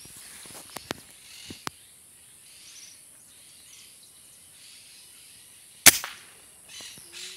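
A single sharp crack of an air rifle shot about six seconds in, the loudest sound, with a short ring after it. A few lighter clicks come earlier, over a steady high-pitched insect buzz.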